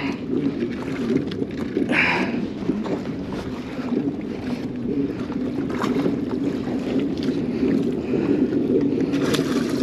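Steady water noise around a kayak, with wind on the microphone, as water slaps against the hull. Brief splashes come near the end as a hooked sheepshead thrashes at the surface beside the landing net.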